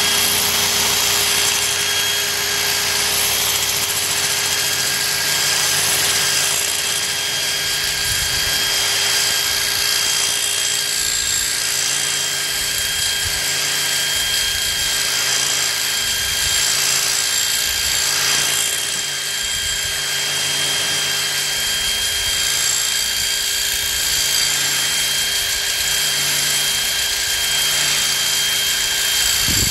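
An electric drill running at steady speed, driving an abrasive sanding disc across a steel motorcycle brake rotor with a steady whine. The disc is grinding rust and glazing off the rotor face to resurface it.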